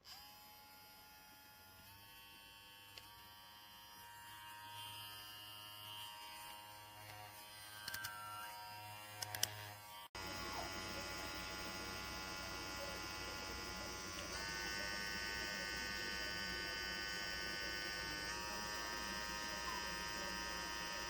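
Cordless electric dog grooming clippers running with a steady, high buzzing whine, with a few sharp clicks a little before halfway. About halfway the sound cuts and comes back louder, and its pitch shifts slightly a couple of times after that.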